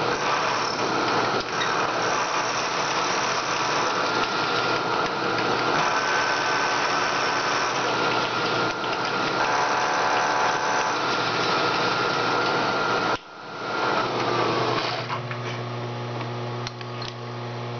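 Milling machine spindle running with an end mill cutting across the face of an aluminium block: a steady, dense cutting noise as the surface is cleaned up square. About 13 seconds in it breaks off suddenly. The last few seconds hold the mill running with no cut, a steady hum.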